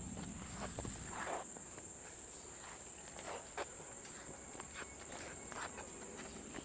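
A steady, high-pitched insect drone from crickets or cicadas, with scattered footsteps and light scuffs on the trail.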